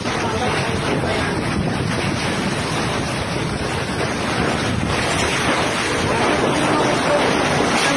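Typhoon-force wind and heavy rain, a loud steady rush with gusts buffeting the phone's microphone.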